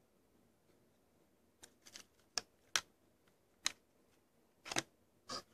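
Sharp clicks and taps of a hard clear plastic lens-filter case being opened and handled. They come irregularly, starting about a second and a half in, and the loudest are near the end.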